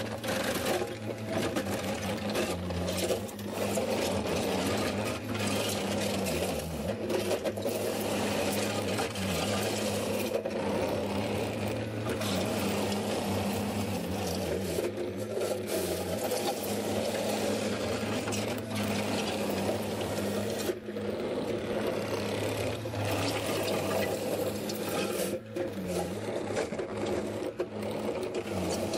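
Case TV450 compact track loader's diesel engine running steadily, with scraping and clatter from the bucket working dirt and broken concrete.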